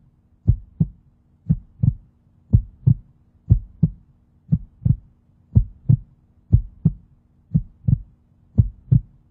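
Heartbeat sound effect: paired low thumps, lub-dub, about one pair a second, over a faint steady hum.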